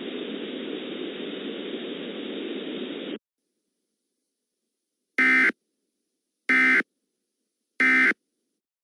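Steady static hiss that cuts off suddenly about three seconds in. After a short silence come three short, identical bursts of warbling data tones about 1.3 seconds apart: the Emergency Alert System end-of-message (SAME 'NNNN') code, signalling that the alert is over.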